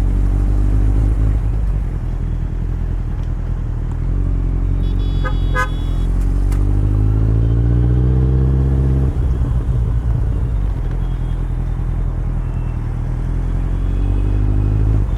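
Kawasaki Z900 inline-four with an Akrapovic exhaust running under way. Its pitch climbs steadily under throttle for about three seconds, then drops off sharply as the throttle closes. A vehicle horn beeps twice briefly about five seconds in.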